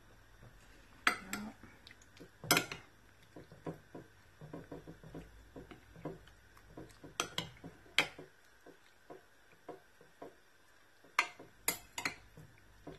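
A metal spoon stirring diced chicken in sweet soy sauce in a ceramic bowl, clinking against the bowl in irregular sharp clicks, a few loud ones among many light taps, with three quick loud clinks near the end.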